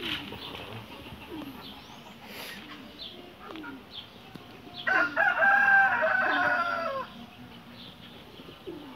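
A rooster crowing once, a single call about two seconds long beginning about halfway through.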